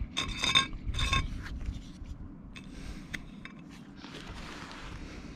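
A paintbrush clinks and scrapes against the rim of an open metal can of liquid roof sealant, and the can rings briefly twice in the first second and a half. A few small clicks follow, then a soft scraping hiss of the brush.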